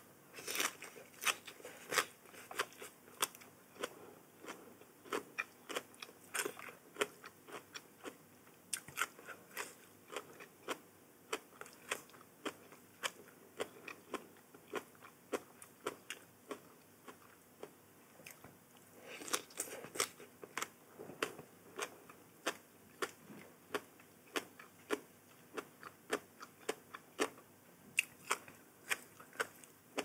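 Close-miked chewing of crunchy food, with crisp crunches at about two a second and a denser run of crunching about two-thirds of the way through.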